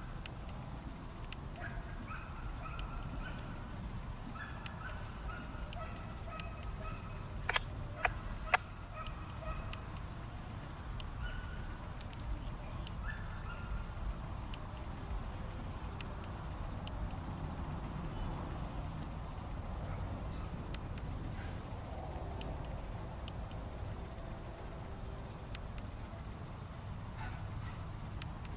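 Birds calling in short whistled notes over a steady high insect drone and a low rumble. Three sharp clicks in quick succession about eight seconds in are the loudest sounds.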